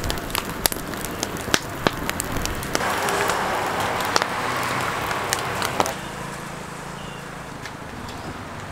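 Coconut husks burning, with irregular sharp crackling pops over a steady rushing hiss. The crackling stops about six seconds in, leaving a low steady hum.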